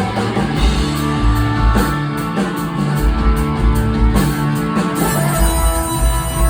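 Rock band playing live: electric guitar over bass and drums.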